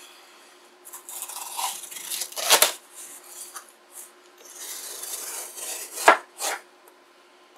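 Cardboard shipping box being cut and pulled open by hand, with scraping and crinkling of cardboard and tape. Two sharp clacks, about two and a half and six seconds in, are the loudest sounds.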